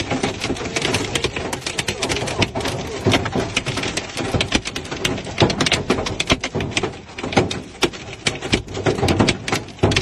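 Large hailstones pelting a vehicle's windshield and body: a dense, irregular clatter of hard hits, many a second, striking hard enough to crack the windshield.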